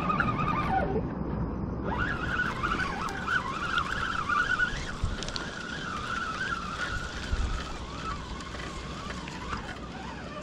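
Fishing reel whirring as a hooked fish is fought on the line: a wavering whine that stops briefly about a second in, then goes on, over a low rumble of wind on the microphone.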